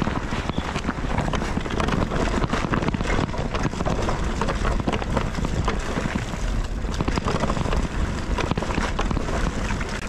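Mountain bike riding over a rough dirt trail: a steady rumble of tyres on the ground and close-packed rattling clicks from the bike, with wind buffeting the microphone.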